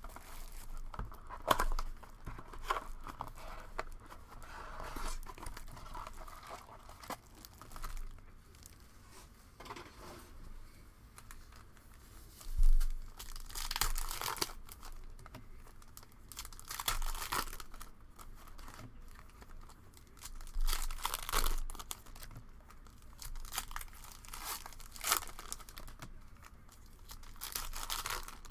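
Plastic wrapping on a trading-card blaster box and its packs being torn open and crumpled, in irregular bursts of crinkling several seconds apart, with one sharp knock of handling about halfway through.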